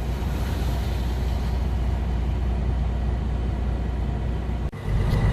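Truck engine and drivetrain running steadily, heard from inside the cab. After a brief dropout near the end, the engine noise is louder.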